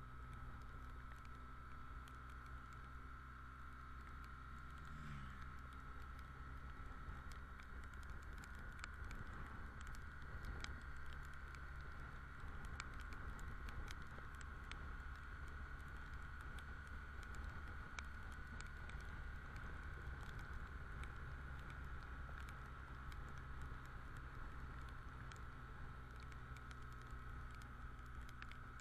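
Raindrops ticking irregularly on a motorcycle-mounted camera while riding, over a faint, steady low hum from the BMW R1200GS motorcycle.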